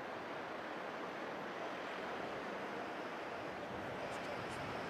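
Steady rushing tyre and road noise from a Jaguar E-Pace driving over an off-road track, with a couple of faint ticks near the end.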